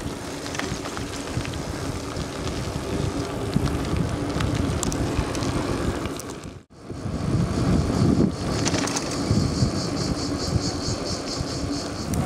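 Wind buffeting the microphone and tyre rumble from a mountain bike rolling along a country road. The sound cuts out for a moment a little past halfway. In the last few seconds a high pulsing buzz repeats about four times a second.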